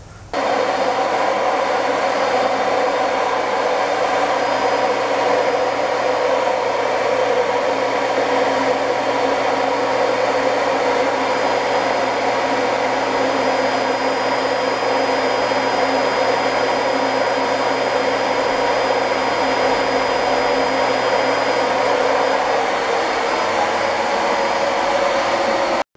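Vacuum cleaner running steadily: an even rush of air with a constant motor whine.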